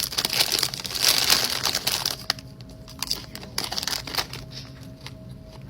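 Chip bag crinkling and rustling as chips are taken out and put on a sandwich, loudest for the first two seconds, then quieter scattered clicks and rustles.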